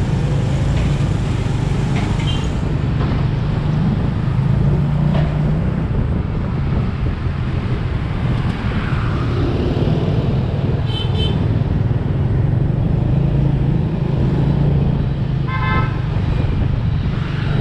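Motor scooter running at riding speed amid traffic, a steady engine hum with road noise. Two short horn beeps sound, one about eleven seconds in and a stronger one near the end.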